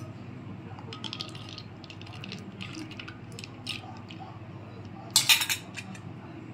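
A spoon stirring a drink full of ice cubes in a clay pot: scattered clinks of ice and spoon against the pot, with a louder quick run of clinks about five seconds in.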